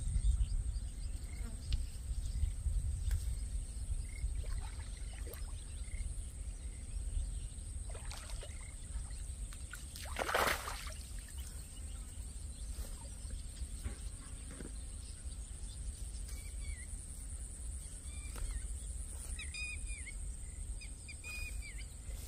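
A hooked fish splashing once at the water's surface about ten seconds in as it is played on a rod, over a steady wind rumble on the microphone and a steady high whine. Short bird chirps near the end.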